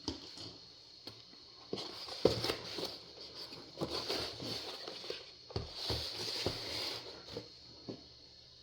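Soft handling sounds from hands moving things on a table: a few light knocks, the clearest about two seconds in and near five and a half and six and a half seconds, with some rustling between them.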